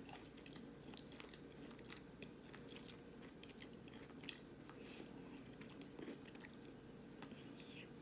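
Faint close-up chewing of a double-battered vegan jackfruit nugget: wet mouth sounds with scattered small crunches and clicks.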